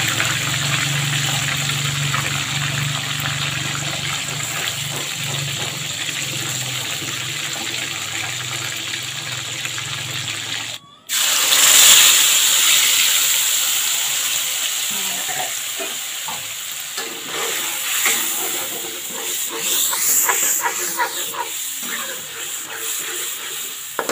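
Whole fish deep-frying in a wok of hot oil, a steady sizzle over a low hum. About eleven seconds in, ground chili spice paste is poured into hot oil and sizzles up loudly, then slowly dies down while a metal spatula stirs and scrapes the wok.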